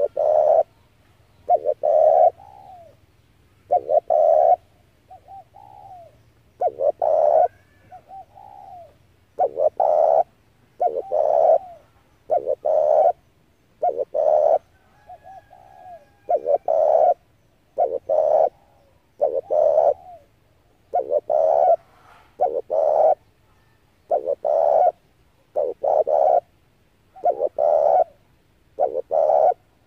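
Spotted dove cooing over and over: short low coo phrases repeating every second or two, with fainter, softer coos in some of the gaps.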